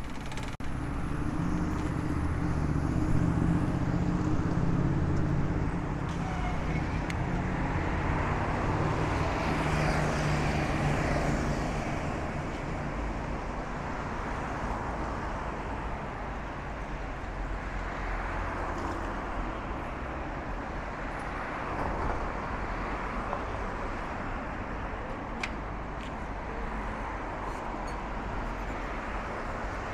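City road traffic: a motor vehicle's engine runs close by and loudest for roughly the first twelve seconds, then the sound settles into steadier, quieter street noise.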